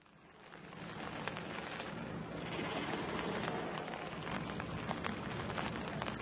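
A steady crackling hiss, dense with small sharp ticks, fading in from silence over about the first second and then holding steady.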